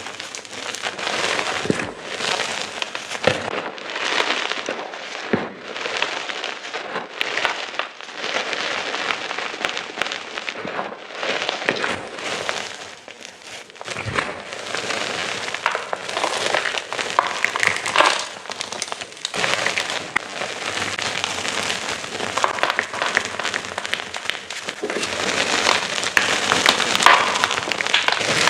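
Gym chalk crunching and crumbling as chunks of it are crushed: a dense, unbroken run of crisp crackles and clicks that eases briefly about halfway through.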